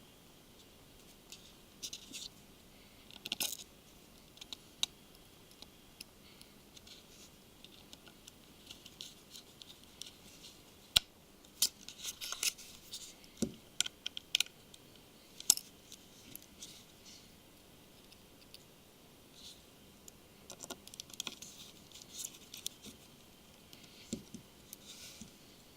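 Light, irregular clicks and scratches of a small Phillips screwdriver and tiny screws being handled and driven into a smartphone's casing, with a few sharper clicks about eleven to fifteen seconds in.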